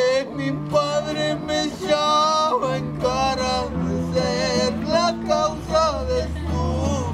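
Acoustic guitar strummed under a high, wavering sung melody, part of a Spanish-language ballad.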